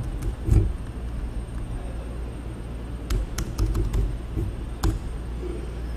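Keystrokes on a computer keyboard as a command is typed: one key press about half a second in, then a short run of several irregular taps between about three and five seconds in.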